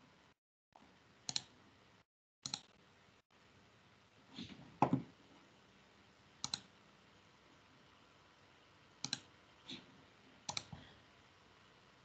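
Computer mouse clicking about seven times, sharp separate clicks a second or two apart, the loudest about five seconds in, over faint room noise.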